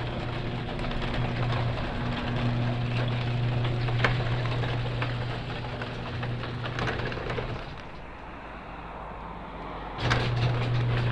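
Garage door opener running as the door closes: a steady motor hum with the rattle and clicks of the moving door, which dies away about eight seconds in.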